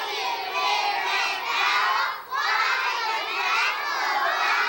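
Many children's voices shouting together as a group, in two long stretches with a short break about two seconds in.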